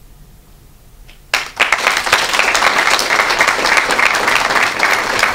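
Audience applauding, breaking out suddenly just over a second in as dense, fast clapping.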